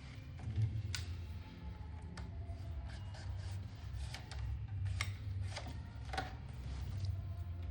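Irregular sharp clicks and taps, a dozen or so scattered unevenly, over a steady low hum.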